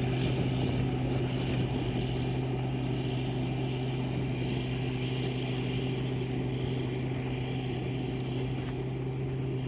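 Engine of a rice-harvesting machine running steadily, a constant low drone.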